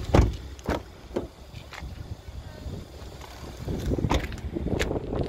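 Footsteps on pavement, about two a second, with wind buffeting the microphone and a louder thump just after the start.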